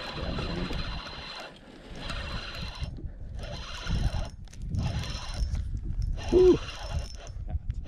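Spinning reel being cranked to reel in a hooked fish, its gears whirring in stretches of a second or so broken by short pauses.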